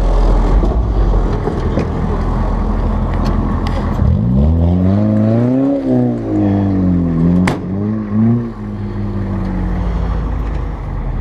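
A car engine rumbling on a dirt track. About four seconds in it revs up and back down. A shorter rev follows, with a sharp knock about halfway through, before it settles to a steady run.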